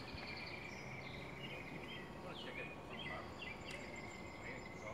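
Birds chirping in short repeated calls over a steady, faint high-pitched tone and general outdoor background noise.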